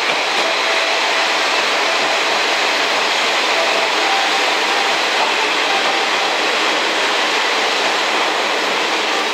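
Three-car KiHa 40-series diesel railcar train rolling steadily into the station: an even, unbroken noise of wheels on rail and diesel engines, with faint brief squeaks now and then.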